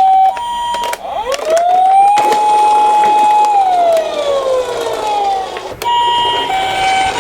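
Ambulance-style emergency siren. A brief two-tone hi-lo 'pee-po' at the start gives way to a single wail that rises, holds steady and slides slowly down, and the hi-lo two-tone comes back about six seconds in.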